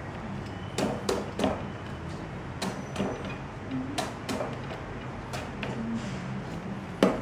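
Cleaver blade knocking and cutting into the thick spiky husk of a whole Monthong durian: about ten short, irregularly spaced knocks as the husk is scored and worked open.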